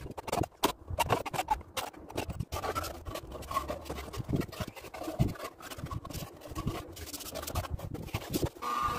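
Wooden boards and offcuts being handled on a worktable: irregular knocks, clicks and scrapes of wood set down and slid against wood and the tabletop.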